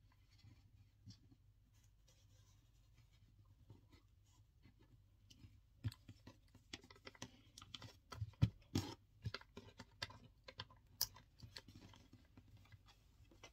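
Faint rustling of macrame cord being pulled and knotted by hand on a wooden tabletop, with scattered light taps and clicks that grow busier in the second half.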